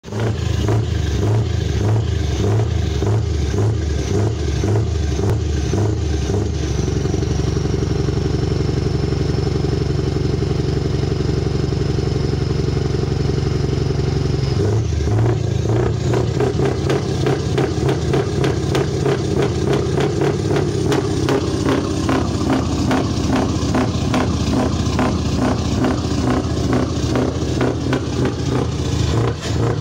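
Scania V8 diesel truck engine heard at the side-exit exhaust pipe. It runs with a pulsing beat, then is revved and held higher for about eight seconds with a faint high whistle, and drops back at about the halfway point before running on with changing revs.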